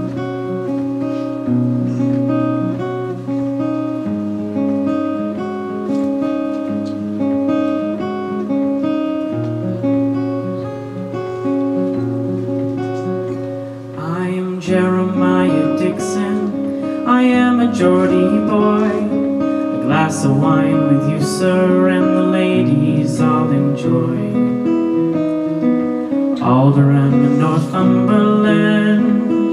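Acoustic guitar and piano playing a slow song's introduction with held chords and a steady bass line; about halfway through, a male voice comes in singing over them.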